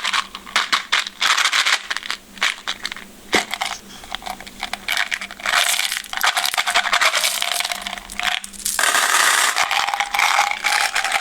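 Hands handling and opening an M&M's can: a string of sharp clicks, scrapes and rattles with short pauses, turning into a steady dense crackling about nine seconds in.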